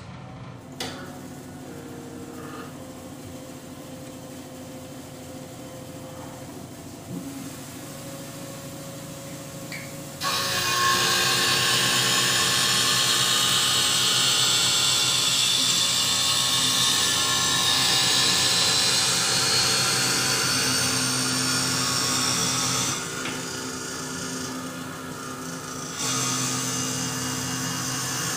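Optical lens edger cutting a spectacle lens to shape: a steady motor hum at first, then about ten seconds in a loud, high grinding as the wheel bites into the lens, which eases off near the end and picks up again.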